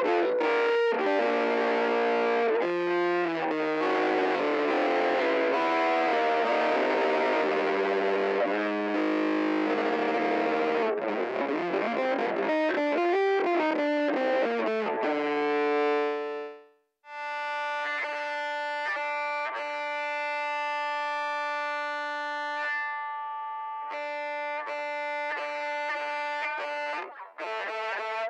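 Electric bass played through an MXR Poly Blue Octave pedal: a busy passage of quick notes with a dense, hazy octave-effect tone, which stops briefly about sixteen seconds in and gives way to slower, held notes and chords.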